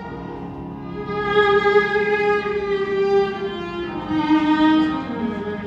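Background music: a violin playing a slow melody of long held notes.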